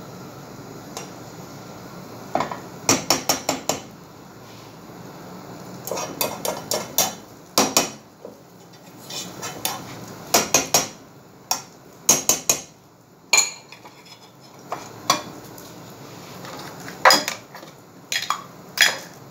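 A fork clinking and scraping against a frying pan as an egg is worked in it: quick runs of sharp taps in several bursts, with short pauses between.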